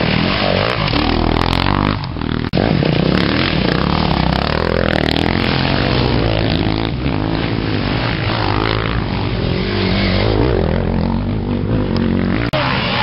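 Off-road dirt bike engines revving hard, their pitch repeatedly rising and falling as the bikes accelerate through the mud.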